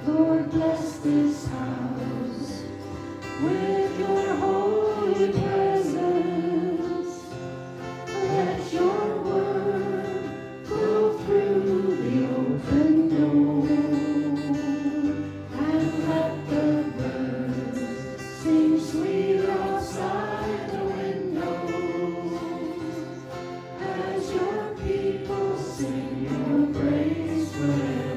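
Worship music: a group of voices singing a gospel-style song with guitar accompaniment.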